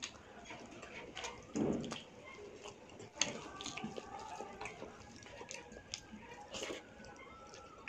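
Close-up eating sounds: wet chewing and mouth clicks from a mouthful of chicken liver curry and rice, then fingers squishing rice into the curry gravy on a steel plate, with a sharp click just after three seconds.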